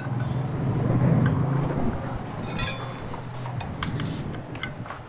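Low, steady machine hum that swells about a second in, with light metallic clinks of bolts and tools being handled on an engine casing.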